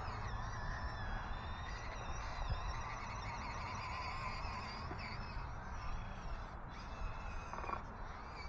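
Electric motor and gearbox of a 1/18-scale FMS FCX18 RC crawler whining as it climbs over rocks and wood, the pitch wavering up and down with the throttle, over low wind rumble.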